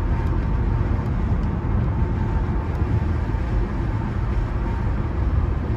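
Steady road and engine rumble inside a moving car on an expressway.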